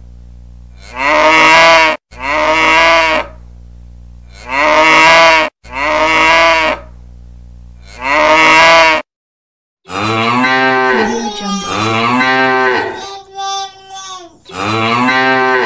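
Cow mooing ringtone: recorded cattle moos played in a repeating loop. Five moos of about a second each come in pairs over the first nine seconds, then after a short pause a second, different run of moos follows.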